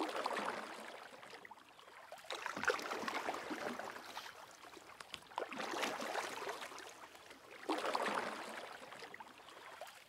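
Small waves washing in on a shore: a soft rushing that swells and fades four times, every two to three seconds.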